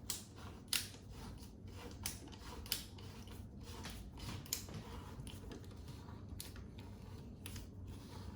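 Screws and tools being handled against the wall while a rail is fitted: a few sharp clicks spaced irregularly over light rubbing and scraping.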